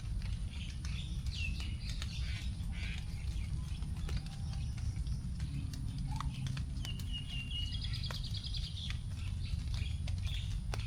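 Forest birds chirping with short calls and, about seven seconds in, a quick trill of rapidly repeated notes. Scattered raindrops drip onto leaves after rain, over a steady low rumble.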